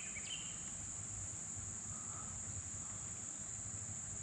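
Insects buzzing in one steady, high-pitched drone, with no break.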